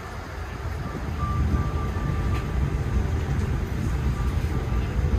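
Steady low rumble inside a Boeing 787-9 cabin parked at the gate. It grows louder about a second in, and a faint high tone comes and goes briefly.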